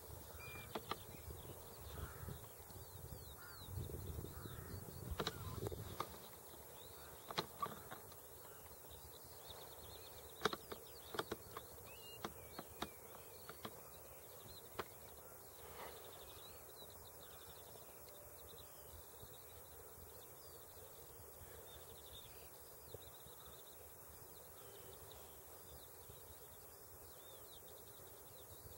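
Faint, continuous twittering of distant birds, with a low rumble over the first several seconds and a handful of sharp clicks in the middle of the stretch.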